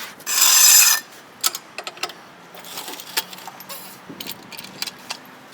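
Floor jack and jack stand being worked to lower a car: a loud hiss-like scrape lasting under a second near the start, then scattered metallic clicks and rattles.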